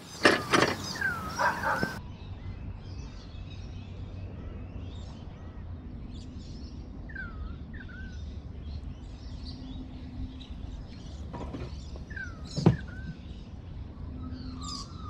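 Birds chirping now and then in short swooping calls, over a steady low rumble. A single knock comes near the end.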